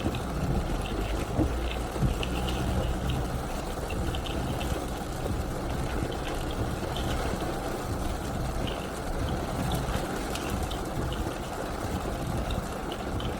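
Car driving in heavy rain: steady rush of tyres on the wet road under a low rumble, with scattered light ticks of rain.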